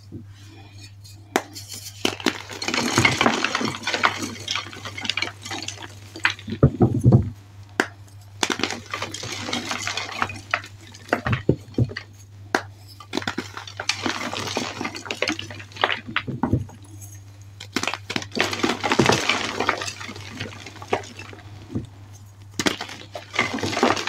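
Blocks of fresh and reformed gym chalk crunching and crumbling as hands squeeze them into powder. The crackly crunching comes in bursts of a second or two, about every five seconds.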